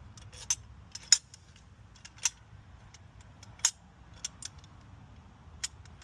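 Sharp metallic clicks and clinks of small engine parts and bolts being handled and set in place, about half a dozen spread irregularly through.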